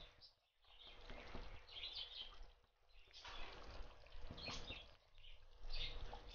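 Kerala fish curry gravy boiling in an earthen clay pot as fish pieces are slid in, a bubbling, crackling hiss that swells and fades three times.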